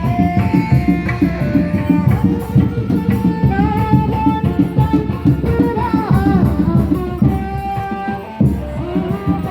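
Kuda lumping music: fast, dense drumming under a melodic line that slides and bends between held notes.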